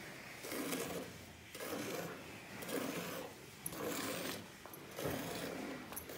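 Milk squirting from a cow's teats into a steel pail of foamy milk during hand milking, coming in rhythmic bursts about once a second.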